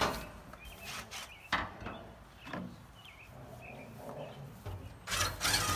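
Metal hand tools working a stuck screw on an old steel truck fuel tank: a few sharp knocks and clinks, then a longer rasping scrape near the end.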